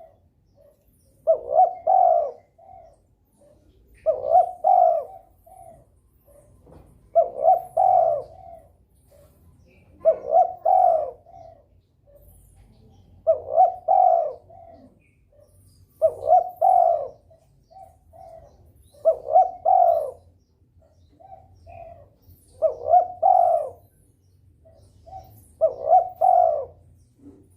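Spotted dove (derkuku) cooing: a short phrase of a few coos repeated about every three seconds. It is a male in breeding condition calling persistently.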